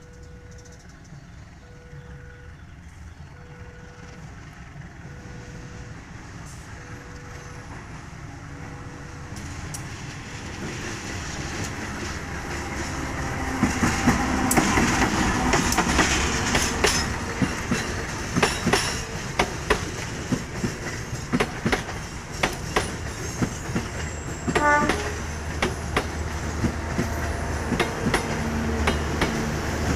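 Level-crossing warning bell ringing in regular pulses, about one a second. Then a train approaches and passes over the crossing, growing louder until about halfway, with its wheels clattering over the rail joints. A short horn blast sounds about three-quarters of the way through.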